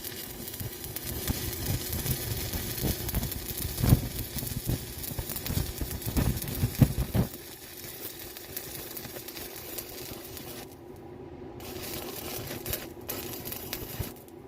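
Electric welding arc crackling on steel rod. It runs steadily for about ten seconds, then stops and restarts in two short runs near the end.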